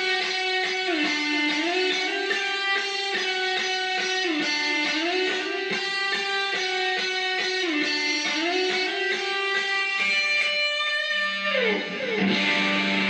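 Stratocaster-style electric guitar playing a slow melodic intro phrase in the G major pentatonic with sustained notes and string bends, the phrase repeated four times. Near the end a slide down the neck.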